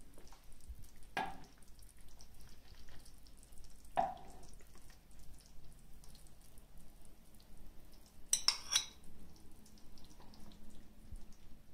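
Metal spoon knocking against the frying pan and a china plate as stuffed peppers are lifted out of their sauce: single sharp clinks about a second in and about four seconds in, and a quick run of clinks about eight and a half seconds in, with soft wet dripping of sauce between.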